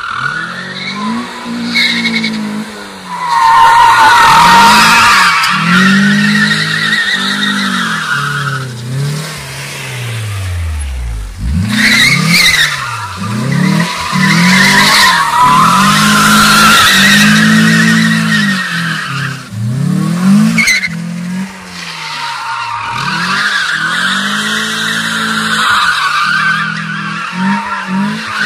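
FSO Polonez engine revving up and down over and over while its tyres squeal in long, wavering bursts as the car slides through drifts on concrete.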